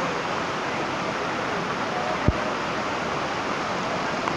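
Stream rapids rushing over rocks, a steady rush of water. One brief low thump about two seconds in.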